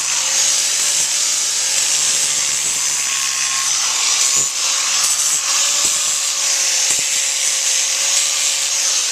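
Electric power grinder running steadily as it grinds down the hoof wall at the quarters of a horse's hoof: a steady motor whine under a gritty rasping hiss.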